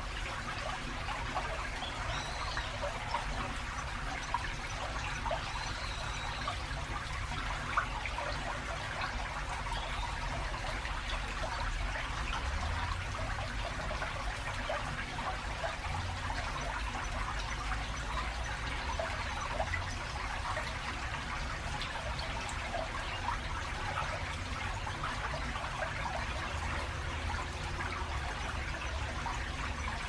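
Shallow river trickling and babbling over its bed between concrete channel walls. Under it runs a steady low rumble of road traffic from a busy road and bridge over the river.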